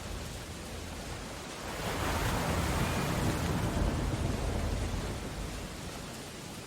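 Steady roar of a stormy sea. About two seconds in, a wave crashing swells up, then fades away by about six seconds.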